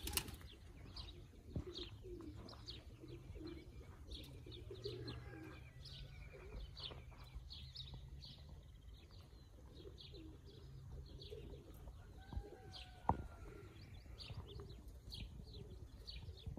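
Small birds chirping steadily, many short falling chirps a second, over soft pigeon cooing, with a sharp click a few seconds before the end.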